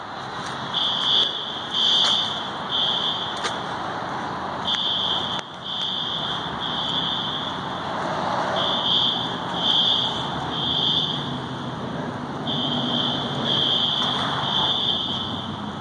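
Fire alarm horns sounding the temporal-three evacuation pattern: three short high-pitched beeps, a pause, then three more, repeating about every four seconds. The recorder takes them for System Sensor SpectrAlert horns and suspects a test of the alarm system.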